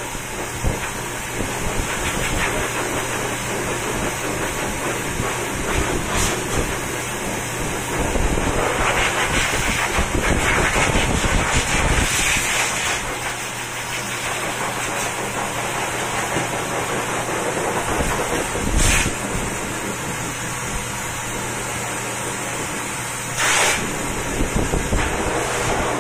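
Pet grooming dryer blowing air through its hose onto a wet cat's fur: a steady rushing hiss over a low motor hum. Two brief louder bursts come about two-thirds of the way in and again near the end.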